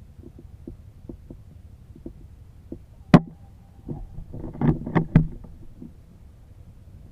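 A single sharp crack of an HW100 air rifle firing about three seconds in, followed a second and a half later by a quick cluster of clicks and knocks, over a low steady rumble.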